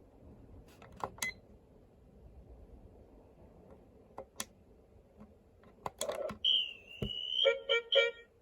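A few sharp clicks, then, about six and a half seconds in, a Duffy character alarm clock starts sounding: a wavering high tone followed by fast, repeated electronic beeps, about three to four a second.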